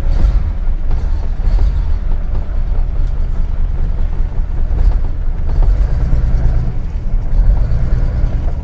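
Nissan Skyline 'Hakosuka' GT-R's straight-six engine running, a loud, low exhaust note that wavers unevenly.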